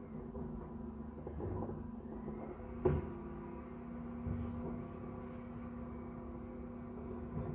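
Refuse collection lorry running steadily down the street, its engine a low hum and rumble, muffled through a closed window. A single sharp clunk about three seconds in, and a softer bump a second or so later.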